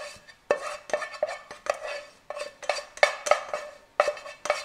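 Spatula scraping and knocking against the inside of a saucepan as it is emptied, a quick run of clinks with a short ring, about two or three a second.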